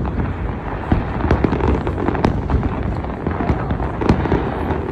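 Aerial fireworks exploding, a dense run of sharp bangs and crackling over a continuous low rumble from the shells bursting.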